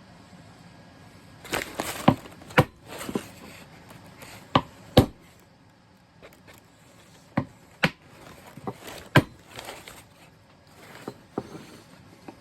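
Sharp clicks and knocks with short bouts of scraping, scattered irregularly: a worn old spokeshave being handled and taken apart by hand, its small metal parts clinking as they are set down.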